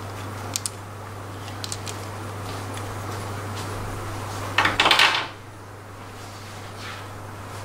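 Metal parts of a scooter's variator being handled on a workbench: a few light clinks, then a loud clatter lasting about half a second a little past the middle, over a steady low hum.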